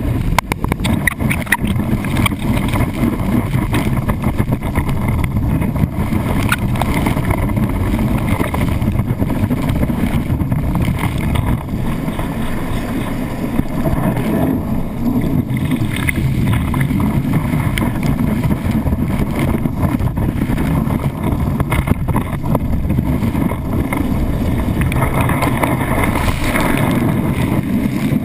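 Steady rush and spray of lake water against a wakeboard as it is towed across the water, heard from a camera housing mounted on the board, with wind on the microphone. A flurry of sharp taps from spray hitting the housing in the first second or so.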